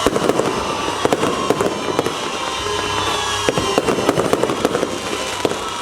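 Fireworks going off: a fast, uneven run of sharp pops and crackles, several a second.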